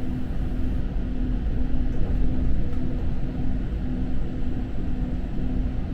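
Inside a moving passenger train: a steady low running rumble, with a hum that pulses on and off about twice a second.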